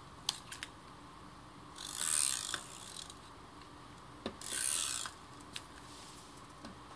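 Handheld adhesive tape runner drawn along the edge of a card panel: two short rasping, ratcheting passes, about two and four and a half seconds in, with a few light clicks between.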